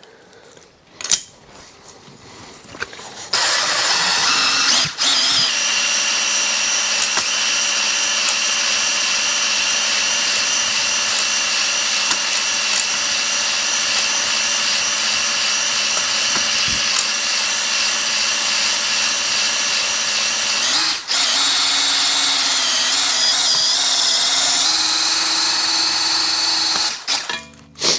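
Cordless drill spinning a stone cylinder hone inside a rusted, pitted small-block Chevy cylinder. A few seconds of handling come first. Then the drill runs with a steady whine, drops out briefly twice, shifts pitch near the end and stops.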